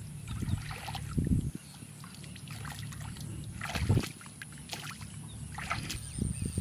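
Shallow water splashing and sloshing as a man wades and reaches through a flooded field channel, with a few separate louder splashes, the biggest about four seconds in.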